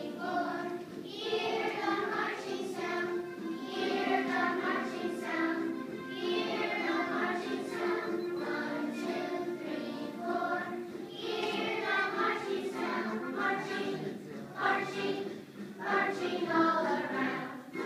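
A group of young children singing a song together as a choir, led by a conductor.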